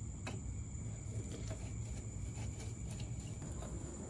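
Faint, scattered clicks and taps of a screwdriver and a plastic wiring connector being handled at a taillight mount, over a steady low hum and a thin, steady high-pitched tone.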